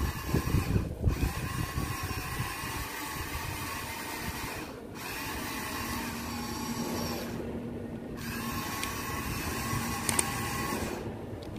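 Huina 1593 remote-control toy excavator's battery-electric motors and gearboxes whining as it drives on its tracks over dirt. The whine cuts out briefly a few times and starts again.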